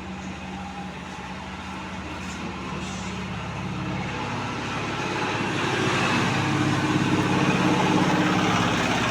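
Road traffic: a motor vehicle's engine runs steadily, with the noise swelling from about halfway through as it grows louder.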